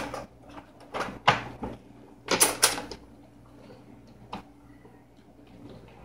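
Stainless steel drip tray and grille of a Breville espresso machine being slid back into place: metal scrapes and knocks about a second in and again around two and a half seconds, then a single light click.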